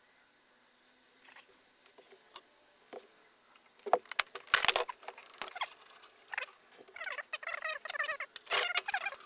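Screws and a screwdriver clinking and rattling against the steel cabinet of a 1960s battery charger. A few faint clicks come first, then several sharp knocks about four to five seconds in, followed by stretches of clattering.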